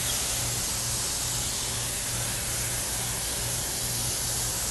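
Hose-fed steam iron blowing a steady, continuous hiss of steam into a mink fur vest, with a low hum underneath that pulses about twice a second. This is finishing steam, used to relax the fur and make a puffed-up back panel lie flat.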